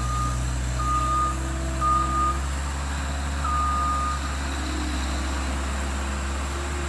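Skid steer's backup alarm beeping about once a second over its steady diesel engine running; the beeping stops after about four seconds while the engine runs on, as the machine stops reversing.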